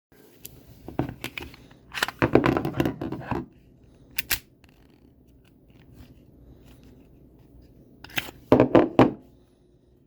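Clicks, clacks and scraping from a KWC 24/7 Gen 2 blowback BB pistol being handled, its slide worked by hand in short spells: about a second in, a longer clatter from two to three and a half seconds, and again near the end.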